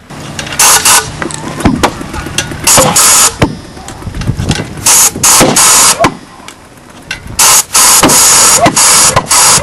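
Model pulsejet engine sputtering as it is started: it fires in several loud, ragged bursts and dies away between them, the longest burst lasting about two seconds near the end.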